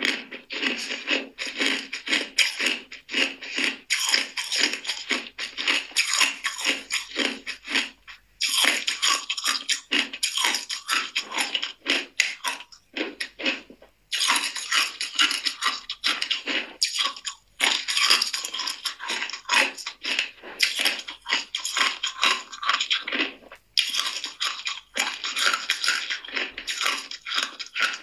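Ice cubes crunched and chewed between the teeth close to the microphone: a dense run of crackling crunches broken by a few brief pauses.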